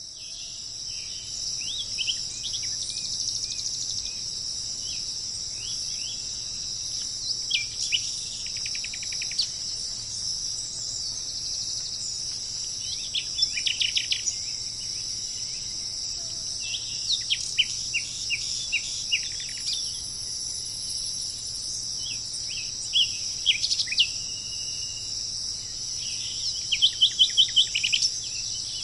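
Small birds chirping and trilling at intervals over a steady, high-pitched insect chorus, with a loud run of quick repeated chirps near the end.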